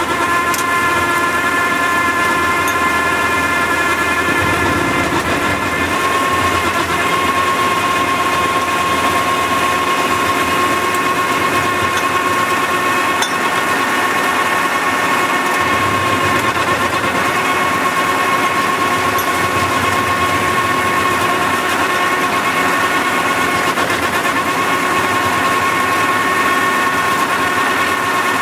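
Tractor-mounted Skorpion mulcher running as it cuts into brush and saplings. The spinning rotor gives a steady, loud whine over the tractor's engine, and the pitch and loudness hold even throughout.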